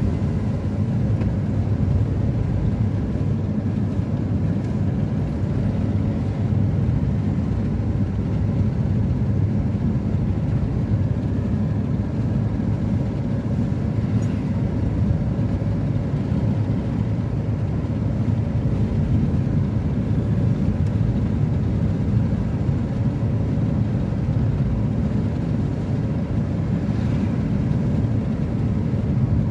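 Steady road and engine noise of a car cruising at constant speed, heard from inside the cabin: a low, even rumble with no changes.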